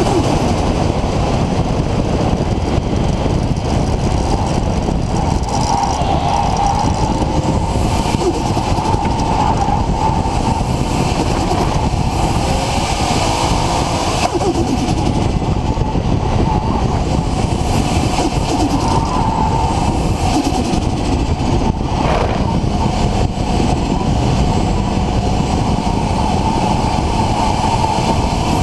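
RB26 inline-six engine with a single Garrett GTX4088R turbo running steadily under way, a dense, even engine and road noise with no breaks.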